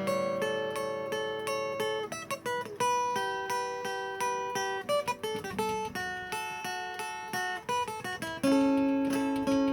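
Acoustic guitar music, plucked and strummed notes in a steady pattern.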